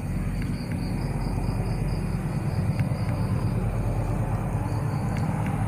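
Low, fluttering rumble on a handheld outdoor microphone at night, with insects chirping in a steady pulsing trill of about five pulses a second, and a few faint clicks.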